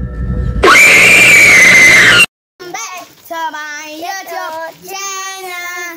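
A very loud, distorted, high-pitched scream lasting about a second and a half, cut off suddenly; after a short silence, children's voices calling out with drawn-out notes.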